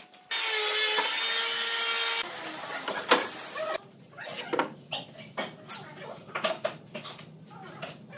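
A loud steady rushing hiss for about two seconds, then a sharp knock. After that come irregular knocks and clacks of pine boards being shifted and set down on steel pipe clamps and a wooden workbench.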